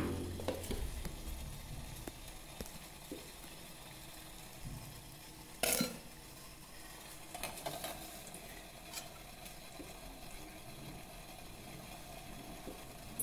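Water boiling in a stainless-steel idli steamer pot, a steady hiss. There is a sharp clank of steel about six seconds in and a few lighter clinks as batter is spooned into the idli plate and it is set in the pot.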